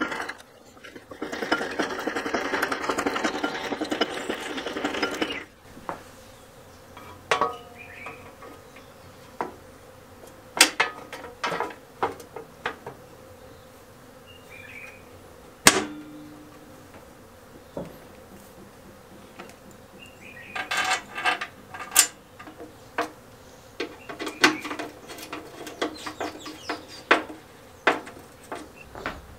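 A rapid metal rattle at the mower's chain drive for about the first five seconds. Then come scattered sharp clicks, clinks and knocks as the steel chain cover is fitted and its bolts are turned in with a hex key.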